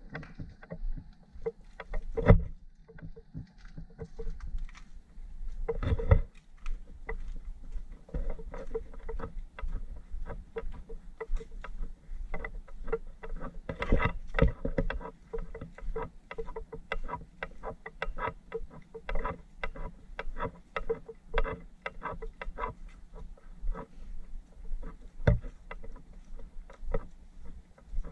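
Footsteps on a dirt path strewn with dry leaves, an irregular run of steps through the whole stretch, with a few louder knocks and low rumble from the moving camera.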